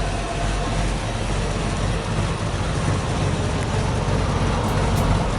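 A vehicle engine running steadily, a low hum over a haze of noise.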